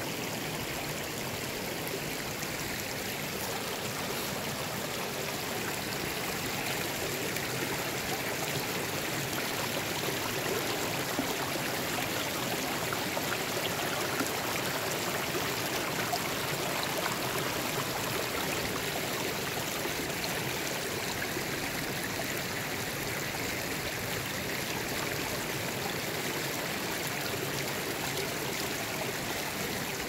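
Shallow mountain stream running steadily over rocks, spilling in small cascades over a low rock ledge: a continuous splashing and burbling.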